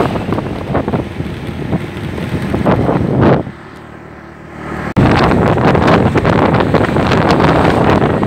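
Wind buffeting a phone's microphone on a moving motorcycle, with the rumble of the ride underneath. A little past the middle it drops to a muffled hush for about a second and a half, then comes back abruptly.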